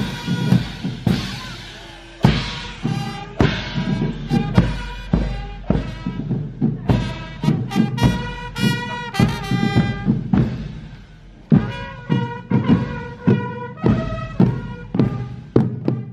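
Marching band playing: trumpets sound a march tune over marching drums beating about twice a second.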